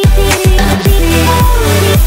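Background electronic dance music with a synth melody and repeated deep bass hits.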